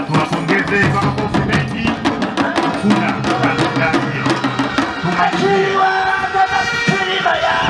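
Traditional Tanzanian ngoma drumming in a fast, dense beat, with a man singing over it. From about five seconds in, the voice holds long notes.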